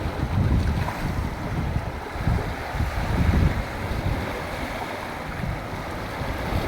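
Sea surf washing steadily, with wind buffeting the microphone in irregular gusts.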